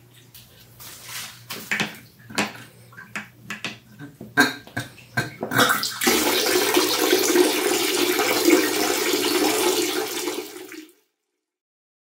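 Water in a glass paludarium tank: scattered trickling and splashing that grows busier, then about halfway through a steady rush of flowing water that cuts off suddenly near the end.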